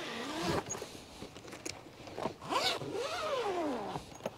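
Zipper on the padded carrying case of a Renogy 400W solar suitcase being pulled open around its edge, in a few long strokes whose pitch rises and falls.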